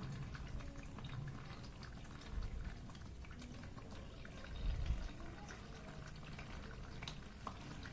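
Faint dripping and trickling of dark aqua regia solution filtering through cement-bag paper into a bucket, with many small ticks of drops. Two dull thumps come near the middle, the louder one about four and a half seconds in.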